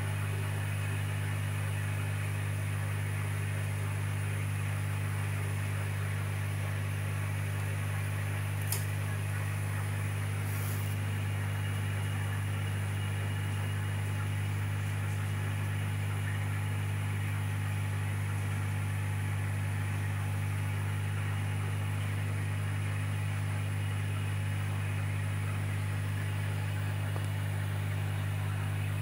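Steady low hum of running aquarium equipment, such as a pump or filter, over a faint hiss. A single sharp click comes about nine seconds in.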